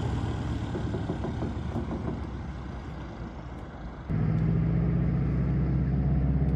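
Floatplane's piston engine and propeller running across a lake, with a pulsing drone that fades over the first four seconds. About four seconds in it jumps abruptly louder to a steady drone with a clear pitch.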